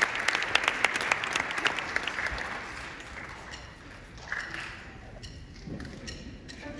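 Audience applause that thins out and fades over the first two or three seconds, leaving only a few scattered claps.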